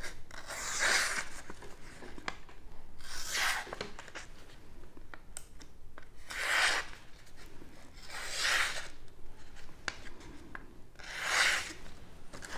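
Folding knife blade slicing through a sheet of paper as a sharpness test: about five separate short slicing strokes, a couple of seconds apart.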